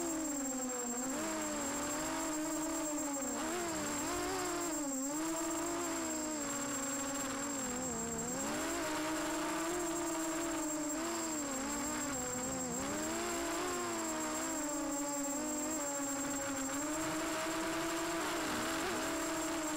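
Electric motors and propellers of a 250-size FPV racing quadcopter, heard from on board, whining with a pitch that rises and falls constantly as the throttle is worked through turns.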